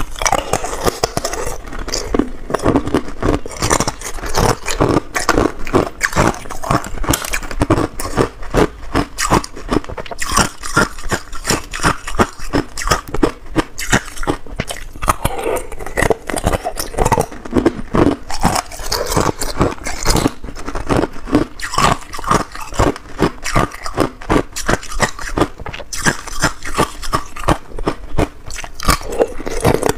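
Hard clear ice cubes being bitten and crunched between the teeth close to a clip-on microphone: a dense, continuous run of sharp crunches.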